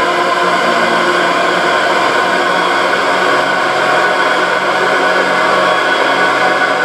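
Drone music: a loud, steady wall of noise with many sustained tones held through it, unchanging.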